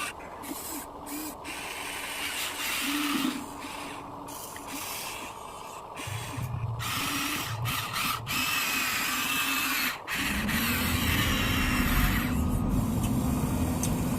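Small electric motors and gearboxes of remote-control construction models whirring in short starts and stops. About ten seconds in, a louder, lower, steadier running sound starts.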